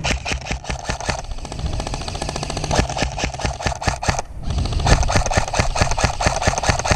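Airsoft electric rifle (an M16-type AEG) firing on full auto: long rapid bursts of shots, the last lasting about three seconds.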